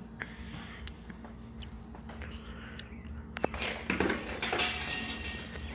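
A few light metallic clinks and knocks as a cast-iron Dutch oven and its lid are handled on a metal grill grate, with a sharper click about three and a half seconds in.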